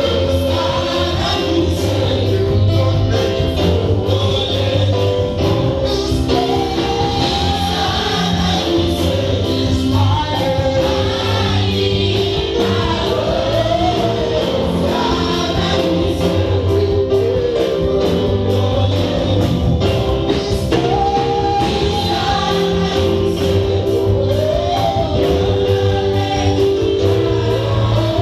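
Gospel music: a choir of voices singing over a steady beat.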